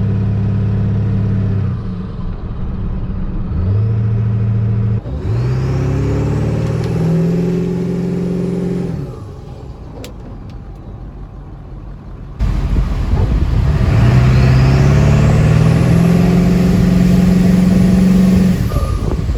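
7.3 Powerstroke turbo-diesel V8 running and accelerating, its pitch climbing in several steps and dropping back between them, with a faint whistle rising above it. About two-thirds through, the sound cuts to a separate, louder recording of the engine climbing again.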